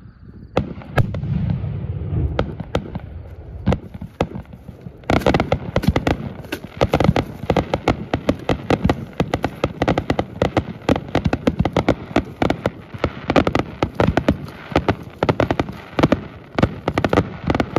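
Aerial fireworks launching and bursting. A few separate bangs come over a low rumble in the first seconds, then from about five seconds in a dense, continuous barrage of rapid cracks and bangs.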